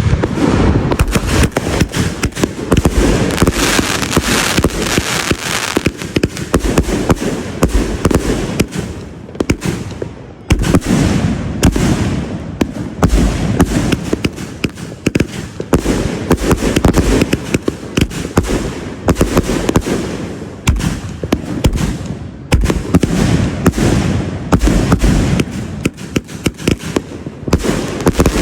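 A 56-shot 500-gram Booberry firework cake firing its shots in rapid, unbroken succession: a dense string of bangs and crackles, with a few brief lulls.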